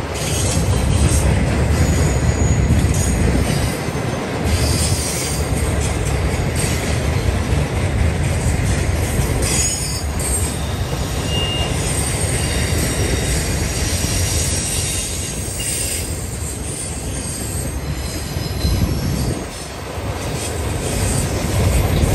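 Continuous welded rail train of rack cars loaded with steel rails rolling past: a steady rumble of wheels on the track with high wheel squeals now and then.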